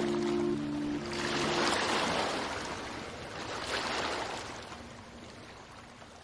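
Ocean waves washing onto a beach, two swells about two seconds apart, fading out toward the end. Held notes of soft music die away in the first second and a half.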